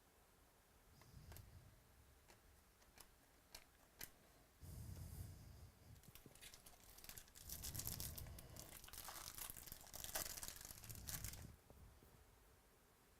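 A trading card pack's foil wrapper being torn open and crinkled, in two stretches, the longer one in the second half. A few light ticks come before it.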